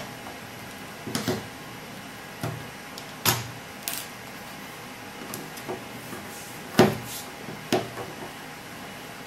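Scattered clicks and knocks of a Phillips screwdriver working screws out of a PLC's plastic back cover, with the small screws and the unit being handled and set down on a wooden desk. About eight short knocks, the loudest a little before seven seconds in.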